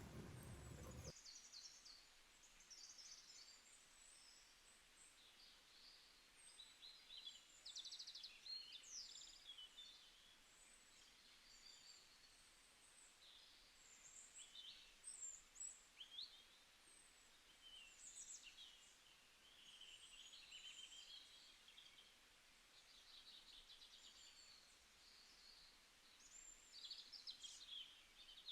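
Faint birdsong: many small birds chirping and trilling in short, high calls over a light background hiss. A fuller, louder sound cuts off about a second in.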